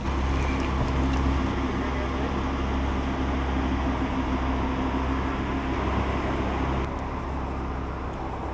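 Lamborghini Huracán's V10 engine idling steadily, a low even hum that gets a little quieter about seven seconds in.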